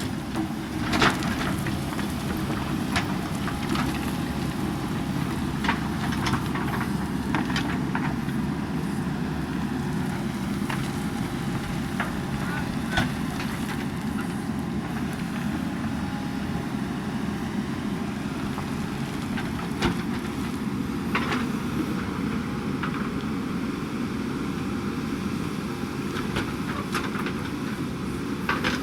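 JCB backhoe loader's diesel engine running steadily under work, with sharp knocks and clanks every few seconds.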